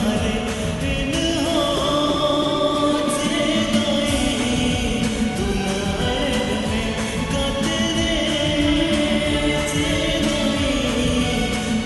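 Santali song playing as a ringtone: singing voices over a steady percussive beat.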